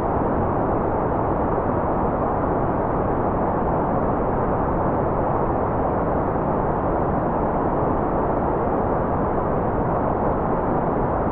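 Steady, unbroken white-noise track: an even rushing hiss weighted toward the low and middle range, dull with almost no high treble.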